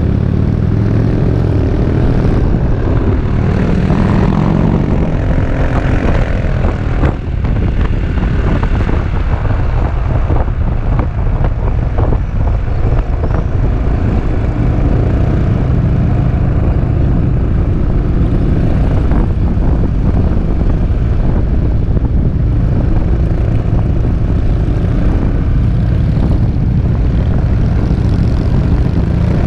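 Peugeot Metropolis three-wheeled scooter being ridden, its engine running under a steady low rumble of wind on the camera. The engine note rises as it accelerates about five seconds in.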